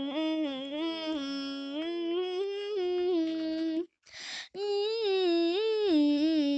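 A high voice humming a tune, stepping between held notes, with a short breath-like hiss about four seconds in before the humming resumes.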